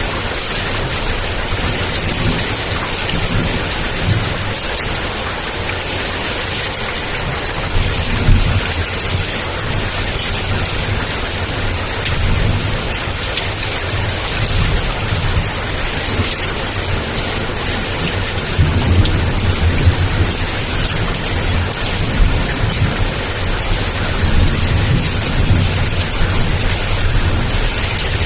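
Heavy downpour falling steadily as a dense hiss, with thunder rumbling low several times underneath. The sharpest peak comes about eight seconds in, and longer rolls swell later on.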